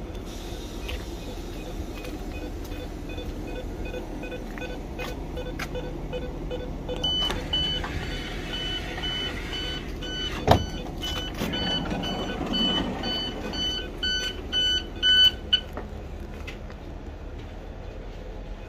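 Electronic door-warning beeping from a parked ICE high-speed train, about two beeps a second, starting about seven seconds in and stopping about fifteen seconds in, over the train's steady hum. A single sharp knock comes about ten seconds in.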